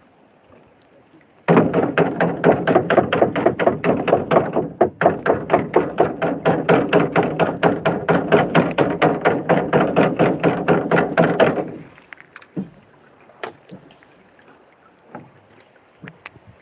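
Rapid banging on a wooden boat hull, about six knocks a second, each knock ringing hollow through the hull. It starts suddenly, breaks briefly, and stops after about ten seconds, leaving a few stray knocks. The banging is done to scare garfish and needlefish toward the net.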